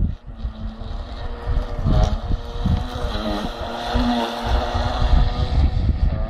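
Electric RC speedboat powered by a 2S LiPo pack, running at speed across the water. Its motor whine rises and falls in pitch as it passes near and turns away.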